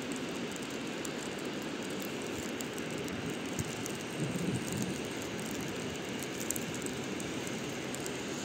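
Steady rumbling noise of a train, with a few faint clicks.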